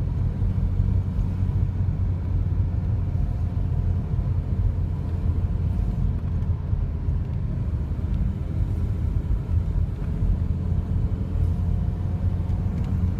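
Car driving at a steady pace, heard from inside the cabin: a steady low rumble of engine and tyres on the road.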